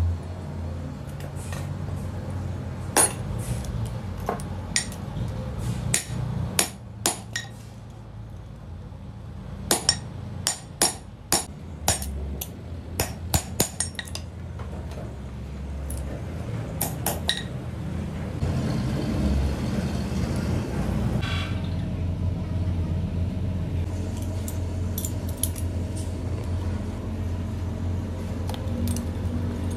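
Sharp hammer taps and metal clinks as steel hydraulic-jack parts are struck and handled, bunched in the first half. In the second half a steady low rumble dominates, with only a few light clinks.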